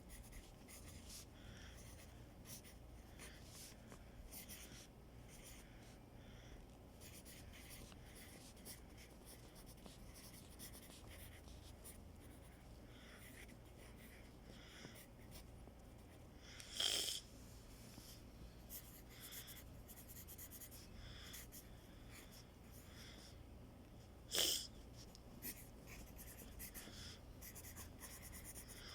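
Faint scratching of a pen or pencil writing on paper, in many short strokes. Two louder brief knocks come through, one just past the middle and one near the end.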